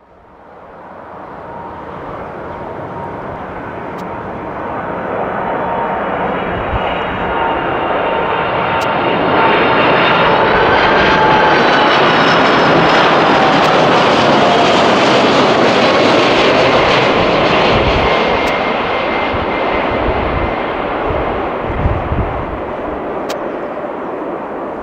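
Jet airliner flying past at low altitude. Its engine noise builds over about ten seconds, peaks through the middle and slowly fades, and the engine whine falls in pitch as it passes.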